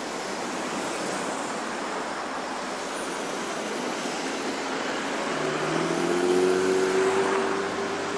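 Highway traffic passing close by: a steady rush of tyre and wind noise as a truck goes past. About five seconds in, a car engine's hum comes up louder and drops slightly in pitch as it passes.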